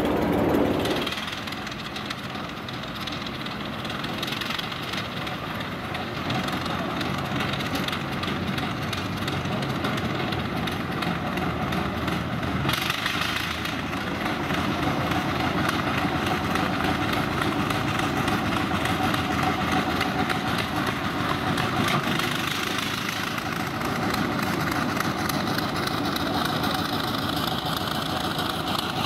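Small narrow-gauge locomotive's engine running steadily as it hauls a short train along the track, with the rumble of its wagons on the rails. It is loudest in the first second as wagons pass close by. The engine note rises and falls near the end as the locomotive approaches.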